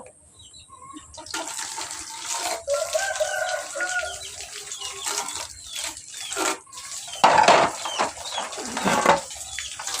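Water running from a tap and splashing, louder twice near the end, with chickens clucking in the background.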